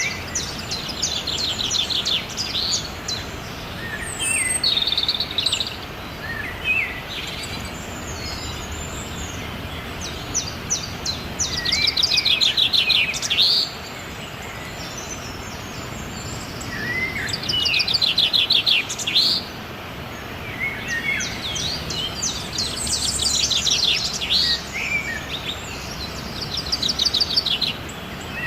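Songbirds singing: phrases of rapid trilled notes every few seconds, some short and some a couple of seconds long, with a few short whistled glides between them, over a steady hiss of background noise.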